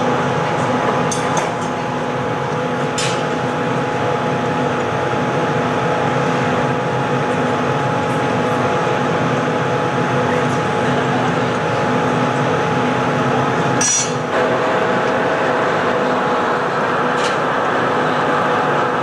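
Steady noise and hum of a hot-glass studio's furnace and glory hole burners, with a few sharp metal clinks of glassblowing tools, the loudest about fourteen seconds in.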